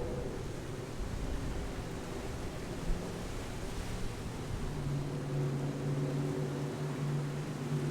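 A motor running steadily with a low hum that shifts in pitch about halfway through, over wind noise on the microphone.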